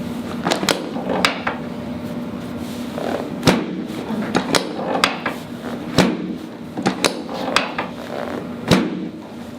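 A dozen or so sharp, irregular knocks and clicks during a chiropractic adjustment of the hip on an adjusting table, over a steady low hum.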